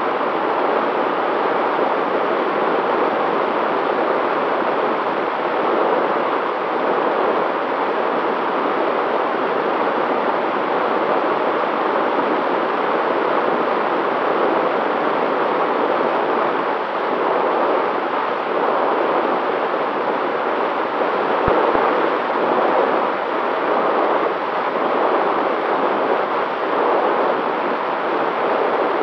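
Steady rush of airflow and propeller noise on the onboard camera microphone of an FPV aircraft in cruise flight, with a faint steady whine held underneath.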